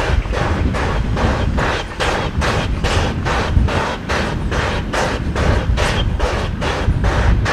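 SY-class 2-8-2 steam locomotive chuffing steadily as it approaches, its exhaust beats coming at about four a second over a deep rumble.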